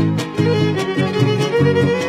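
Son huasteco (huapango) instrumental passage by a string trio: violin playing the melody over fast, rhythmic strummed chords from the jarana and huapanguera.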